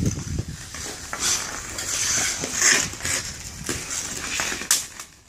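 Ice-hockey skate blades scraping the ice and hockey sticks knocking on the ice and puck, with one sharp clack near the end.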